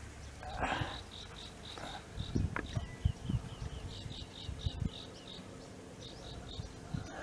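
Insect chirping in quick, regular high pulses, about five a second, with a few soft rustles and low bumps.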